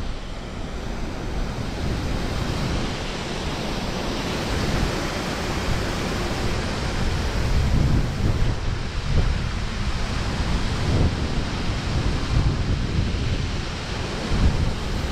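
Water pouring out of a spillway gate and churning into the canal, a steady rushing noise, with wind buffeting the microphone in uneven gusts.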